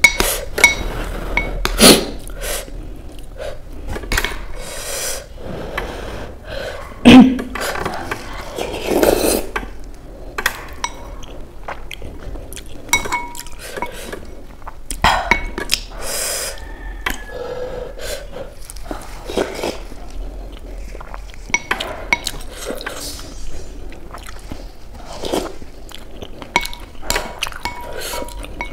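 A white soup spoon repeatedly scraping and clinking against a clear glass bowl of soupy Maggi noodles, the clinks ringing briefly, between the chewing sounds of eating.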